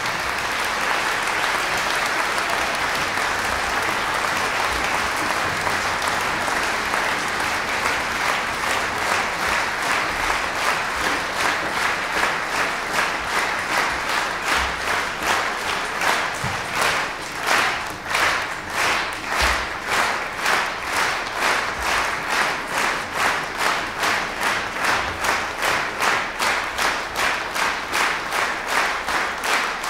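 Concert audience applauding: a dense, even ovation that about halfway through turns into rhythmic clapping in unison, about two claps a second.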